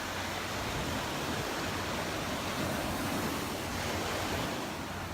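Waves breaking and washing onto a sandy beach, a steady even rush of surf, with some wind on the microphone.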